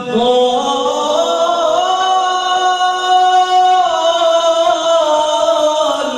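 A man's solo voice in melodic Quran recitation (tilawat), drawing out long held notes whose pitch glides slowly upward and later falls back.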